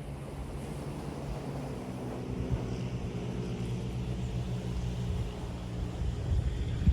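Wind buffeting the microphone over waves on a beach, with the steady drone of an engine in the background that builds a little over the first few seconds.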